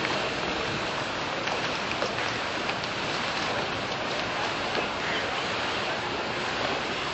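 Steady rushing and splashing of river water against the hull of a moving river-cruise boat.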